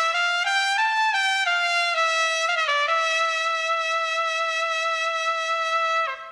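Background music: a solo brass melody, likely a trumpet, playing a few slow stepping notes and then one long held note that drops in pitch and fades out near the end.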